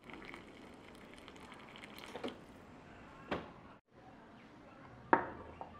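Hot water dispenser trickling a thin stream of water into a mug of dry instant noodles, with a couple of small clicks. After a break, a single sharp click near the end is the loudest sound.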